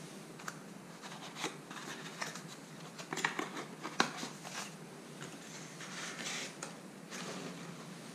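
Hands handling a white cardstock paper-craft prism: light paper rustling and scraping with scattered small taps and clicks, busiest about three to four seconds in, where the sharpest click falls.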